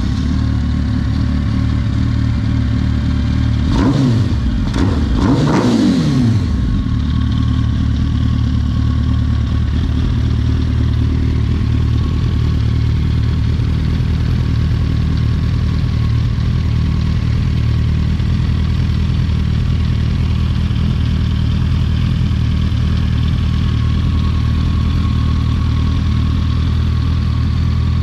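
Yamaha Raptor quad's swapped-in Yamaha R1 inline-four motorcycle engine idling steadily. It is revved briefly twice, about four and five and a half seconds in, then settles back to a steady idle.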